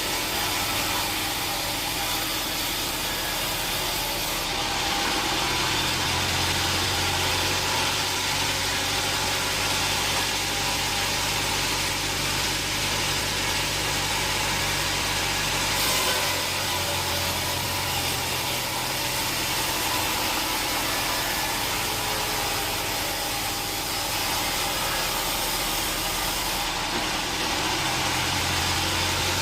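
Sawmill engine running steadily, with a continuous mechanical hum and hiss and a brief knock about halfway.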